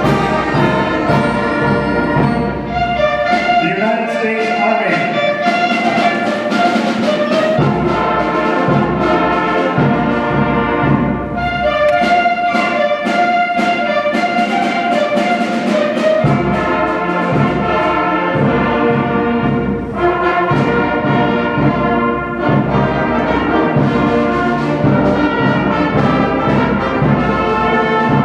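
Middle school concert band playing a march medley of the armed forces service songs, with brass carrying the tunes. The bass drops out twice for lighter passages: about four seconds in, and again from about eleven to sixteen seconds.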